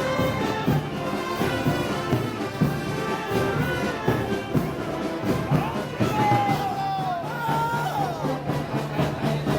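A brass band playing festival march music, with sustained brass chords over a steady beat.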